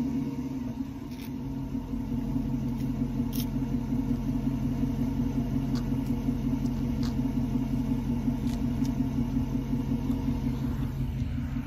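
A Dodge Charger's 5.7 Hemi V8 idling steadily, heard close to the tailpipe, with a smoky exhaust as a Seafoam treatment burns off.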